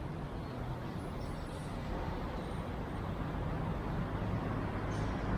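Toyota Vios's 2ZZ-GE engine running steadily through a Kakimoto Regu 06&R muffler while cruising: a low exhaust hum under road noise, growing slightly louder.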